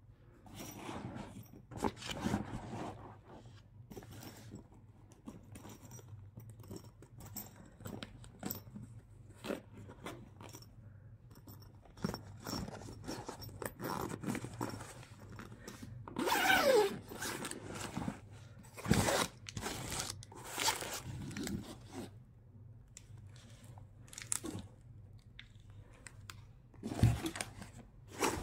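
Hands handling a camouflage nylon soft crossbow case: irregular fabric rustling, scraping and crunching, with a zipper being pulled open. There are a few louder bursts of handling about halfway through and near the end.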